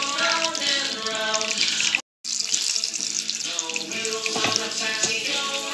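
Battered chicken sizzling as it deep-fries in hot oil in a wok, a steady hiss with music playing over it. The sound drops out for a moment about two seconds in.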